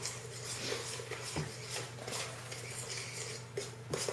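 Utensil stirring a dry flour and spice mixture in a bowl: soft, irregular scraping and tapping.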